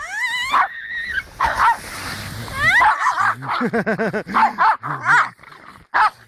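Pug barking and yipping excitedly in quick repeated bursts, with high rising squeals near the start.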